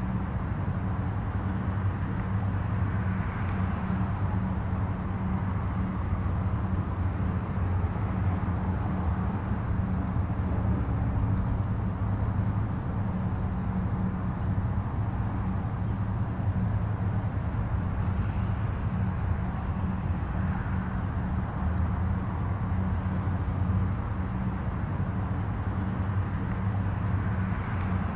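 Distant highway traffic: a steady low rumble of tyres and engines with a tyre hiss that swells gently now and then as vehicles pass.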